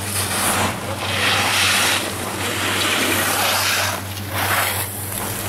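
Wind gusting over the microphone, a rushing noise that swells for a few seconds through the middle and again briefly near the end, over a steady low hum.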